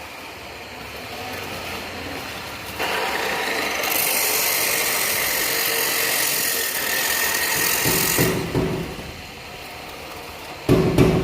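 A power tool or air tool running with a steady hiss and a faint whine for several seconds, then stopping, followed by loud knocks near the end.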